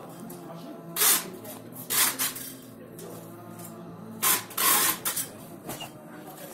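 Cardboard smartphone box being opened by hand: the lid and inner tray scrape and slide against each other in short rushes of friction noise, once about a second in, again at two seconds, then twice in quick succession near the middle.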